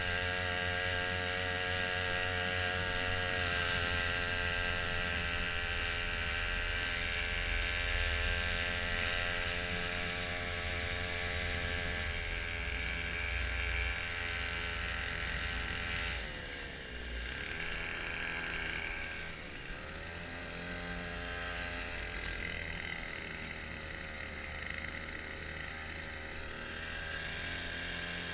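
Small motor on a motorized kayak, running steadily. About two-thirds of the way through its revs fall sharply, dip once more, then slowly climb back.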